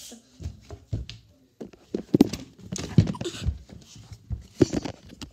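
Irregular knocks, thumps and rustling of handling noise as the phone recording is grabbed and jostled by a child up close.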